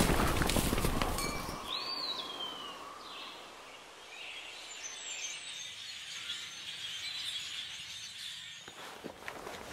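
Horses galloping, hoofbeats fading out in the first couple of seconds. Then a single bird cry that rises and falls about two seconds in, followed by the high chattering of a large flock of birds that stops shortly before the end.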